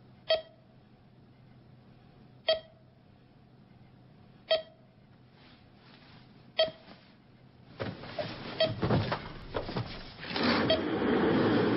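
Computer alarm beeping: a short electronic beep about every two seconds. From about eight seconds in, noisy movement sounds join it, with a longer, louder scraping stretch near the end.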